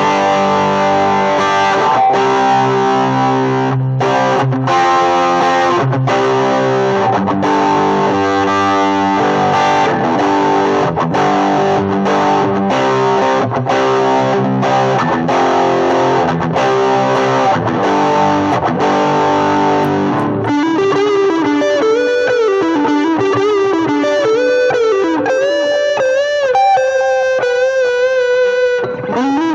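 Better LP-10 Les Paul-style solid-body electric guitar played through a distorted amp. It starts with rhythmic chords broken by short regular stops, then about twenty seconds in switches to a single-note lead line with string bends and vibrato.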